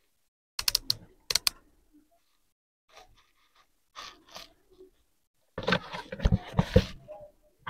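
Hands handling a plastic table lamp: a quick run of sharp clicks about half a second in and again a moment later, faint ticks and rubbing, then a loud cluster of plastic knocks and scraping near the end as the lamp is moved about.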